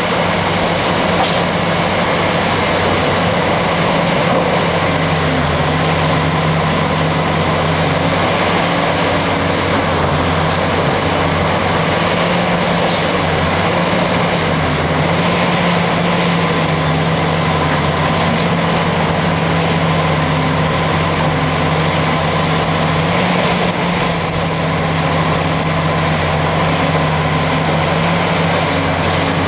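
Caterpillar 375 hydraulic excavator's V12 diesel running steadily under load as it digs and loads rock into a dump truck.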